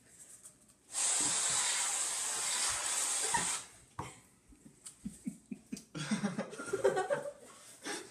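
Aerosol can of whipped cream spraying in one long, loud hiss, starting about a second in and lasting about two and a half seconds.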